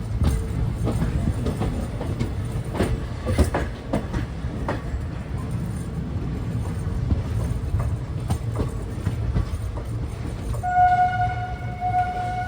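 A train rumbling along the platform, with scattered clanks of the wheels over the rail joints. Near the end a train horn sounds one steady note for about two seconds.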